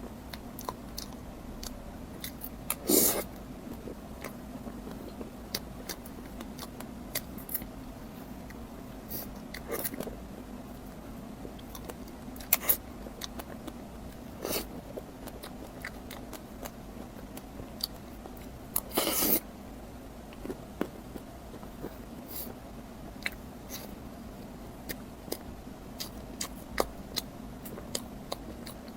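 A person biting and chewing crunchy fried bread close to the microphone: scattered crisp clicks, with two louder crunches about 3 seconds in and just past the middle. A steady low hum runs underneath.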